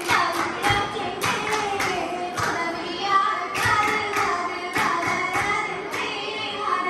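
Oppana performance: girls singing a Mappila song in chorus over rhythmic group hand-clapping, about two claps a second.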